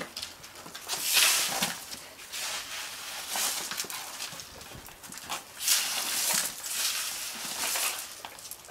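Broom scraping across a patio in several sweeping strokes, one to two seconds apart, with small clicks and knocks between them and noises from a Newfoundland puppy.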